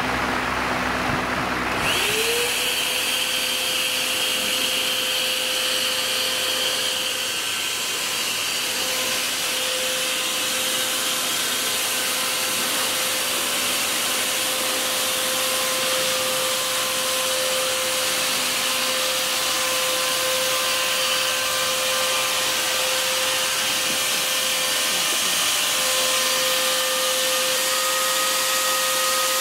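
Electric air blower starting up about two seconds in, its whine rising in pitch as the motor spins up. It then runs steadily with a high whine and a rush of air, blowing air through its hose into a bubble ball to inflate it.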